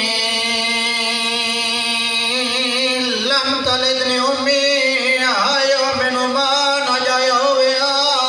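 A man chanting a wordless lament in the style of a Shia masaib recitation, holding long steady notes that break into short swooping, wavering turns about three and five seconds in.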